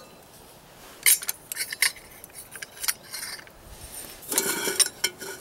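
Metal camp percolator being taken apart by hand, the stem and basket drawn out of the pot and the spreader lid pulled off the basket. It gives a string of light metal clinks and scrapes, with a sharp one about a second in and a busier cluster near the end.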